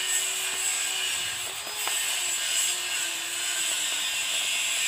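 A small stick scraping and ticking against a thin plastic cup as it stirs mixed candy paint, over a steady hiss and a low, slightly wavering hum.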